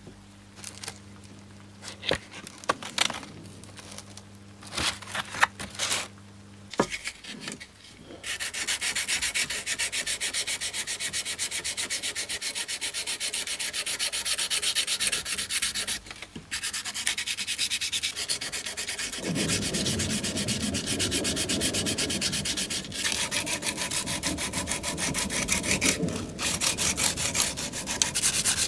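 Sandpaper rubbing in quick, even back-and-forth strokes, steady and hissy, starting about eight seconds in and pausing briefly twice. Before that, a few scattered knocks and taps.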